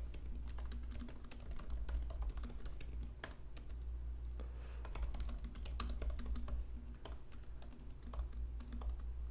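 Typing on a computer keyboard: a quick, irregular run of keystroke clicks over a steady low hum.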